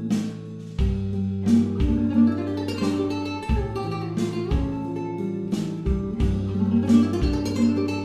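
Background music: acoustic guitar picking a steady, gentle melody over bass notes.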